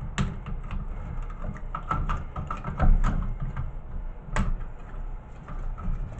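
Scattered clicks, taps and knocks from a CRT television circuit board and its wiring being handled, with wires and a small board being worked loose by hand, over a steady low rumble.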